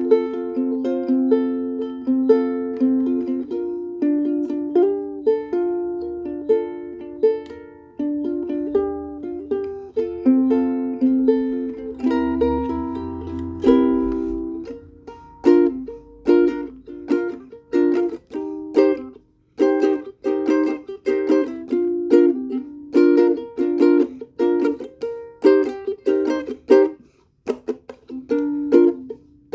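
Dreadnought-body ukulele in high-G tuning, freshly strung with Aquila strings, played as chords: long ringing chords for the first half, then shorter rhythmic strums from about halfway through.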